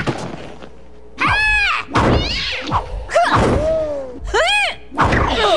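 Several dull thunks of blows, alternating with high yelping cries that rise and fall in pitch, as of a puppy being struck.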